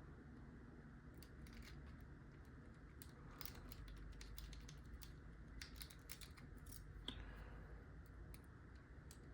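Faint, irregular small clicks of a lock pick working the pins inside a pin-tumbler lock's keyway.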